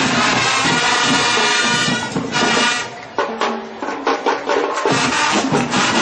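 School marching band playing: brass and drums together on a loud sustained passage, then about halfway through the brass drops out and drums and percussion play short, sharp hits before the band fills back in near the end.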